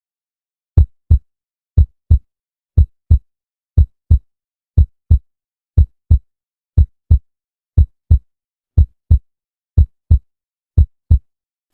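Heartbeat sound effect: deep double thumps, one lub-dub pair about every second, eleven pairs in all, with silence between them.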